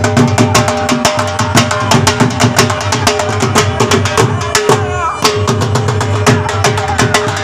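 Dhol, the two-headed barrel drum, beaten in a fast, driving rhythm, over a steady held tone from an accompanying instrument.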